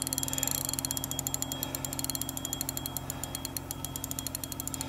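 Spinning reel drag clicking in a rapid, even run as a large lake trout pulls line off the spool against the bent rod. The angler thinks the drag was set a little too loose.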